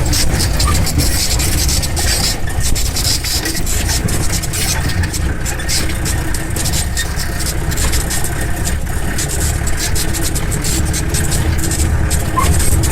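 Jeep's engine running steadily on the move, with many small irregular clatters and a constant hiss of road and wind noise.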